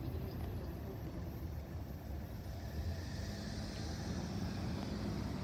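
Low, steady rumble of cars idling at a railway level crossing, with a low hum joining about three seconds in.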